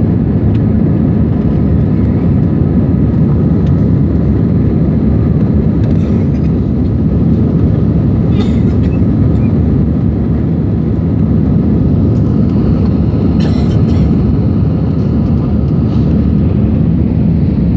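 Jet airliner cabin noise in flight, heard from a window seat: a steady, loud low rumble of engines and rushing air, with faint steady tones above it.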